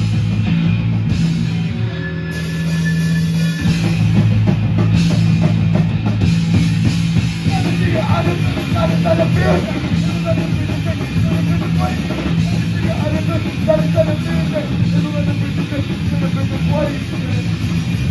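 Hardcore punk band playing live and loud: electric guitars over a drum kit, with heavy sustained low notes.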